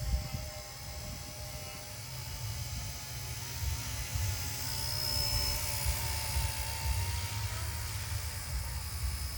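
RC Era C032 UH-1 Huey scale RC helicopter in flight: the electric motor and rotor whine steadily with a slightly wavering pitch. The whine grows a little louder around the middle.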